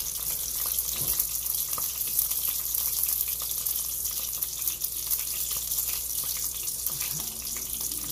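Beef pieces sizzling in hot oil in a cast-iron skillet: a steady hiss with scattered small crackles and pops.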